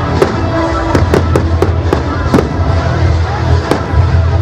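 Fireworks exploding in an aerial display: an irregular run of sharp bangs and cracks, several in quick succession about a second in, over a steady low rumble.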